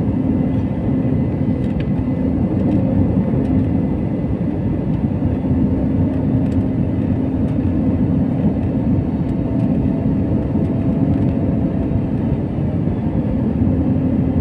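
Jet airliner cabin noise in flight: a steady drone of turbofan engines and airflow heard from inside the cabin, a low rumble with a steady hum running through it.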